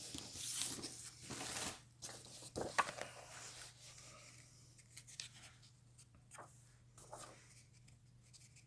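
Comic packaging being handled and opened: a stretch of tearing and rustling in the first two seconds, a sharp click nearly three seconds in, then fainter handling noises and small clicks.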